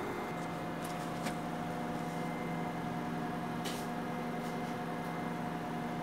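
Elevator machinery hum in the machine room: a steady drone with a few steady tones. It is broken by light ticks about a second in and a sharper click near the middle.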